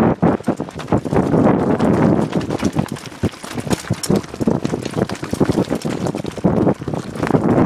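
Downhill mountain bike descending rough dirt singletrack: wind buffeting the microphone over tyres on dirt and loose stones, with frequent sharp rattling knocks as the bike jolts over the rough ground.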